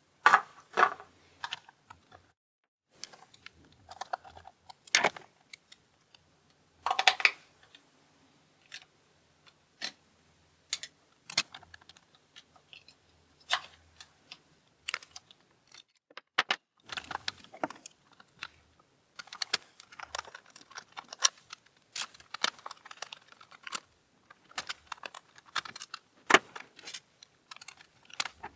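Irregular sharp clicks, knocks and short scrapes of small plastic parts and hand tools being handled as a toy RC car is taken apart.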